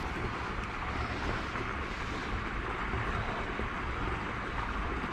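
Steady rush of running water with wind buffeting the microphone.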